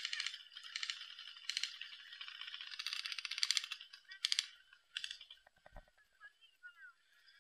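Airsoft guns firing rapid full-auto bursts, a fast rattle of clicks, about six bursts in the first five seconds, the longest lasting nearly a second. A single low thump comes near the end, after the firing stops.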